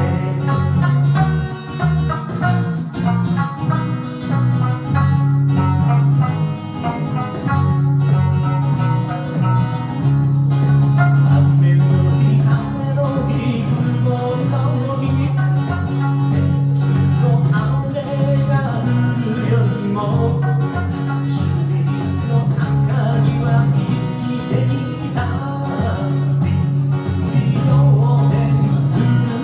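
Electric sanshin, the Okinawan three-string lute, plucked in a continuous melody over a steady low bass line.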